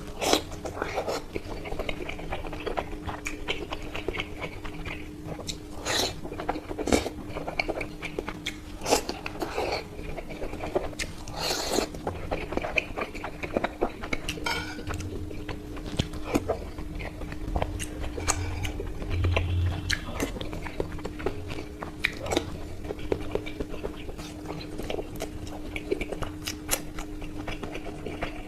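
Close-up sounds of someone biting and chewing an Indian sweet: irregular wet chewing and crunchy bites, with a steady faint hum underneath.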